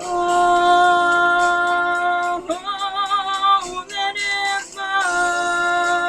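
A female voice singing long wordless held notes, one with a wavering vibrato about halfway through, over a backing track with a light steady beat.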